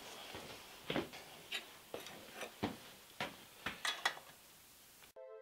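Irregular metallic clicks and clinks of a wrench on the clamp bolts of a milling-machine fixture, one or two a second. Music begins just before the end.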